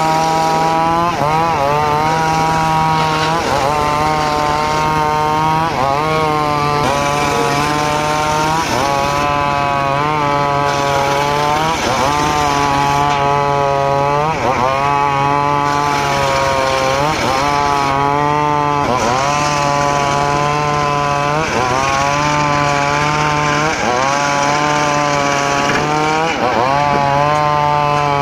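Homemade circular saw cutting mahogany: the blade's whine sags in pitch as it bites into the wood and recovers, over and over about every second and a half, over a steady lower hum from the drive.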